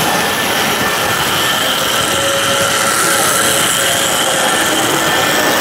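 Steady whirring din of three-rail O-gauge toy trains running on the layouts, with a few faint steady tones over a constant rumble.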